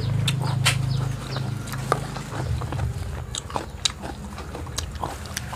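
Close-up eating sounds: chewing and crunching a rujak of pineapple, guava and fried peanuts, with many short, irregular clicks of a fork against a plastic plate. A steady low hum runs underneath and shifts about two seconds in.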